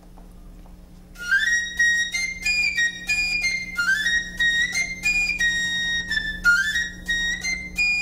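Wooden fife playing a solo tune that starts about a second in, with repeated quick upward runs into high held notes.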